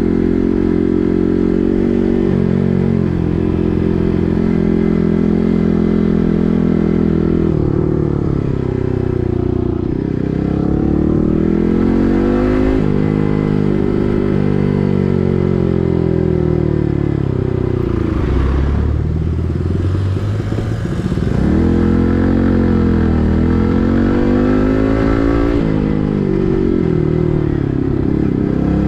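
Yamaha MT15's 155 cc single-cylinder engine running through an SC Project full-system exhaust while riding. The pitch rises and falls several times as the bike accelerates and then drops sharply at throttle lifts or gear changes.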